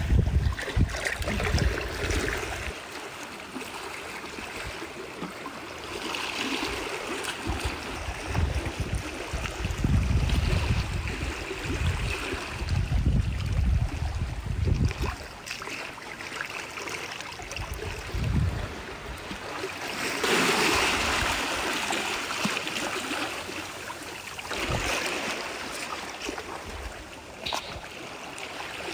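Shallow seawater sloshing and trickling among rocks in a tide pool, swelling and easing several times. Gusts of wind rumble on the microphone now and then.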